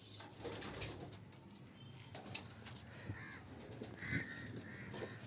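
Pigeons cooing faintly, with scattered soft clicks and rustles of movement.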